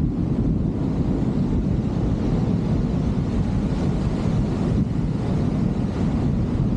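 Steady wind rush buffeting the microphone of a camera on a hang glider in flight.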